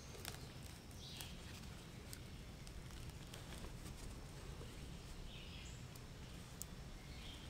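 Faint woodland ambience: a low steady background with a few faint bird chirps and scattered small clicks.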